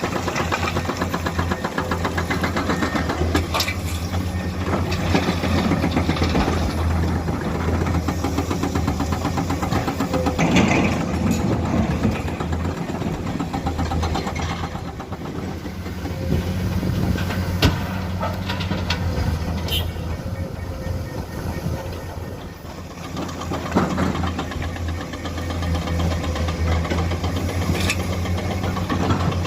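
Komatsu excavator's diesel engine running, its level rising and easing as the load changes, with a few sharp knocks now and then.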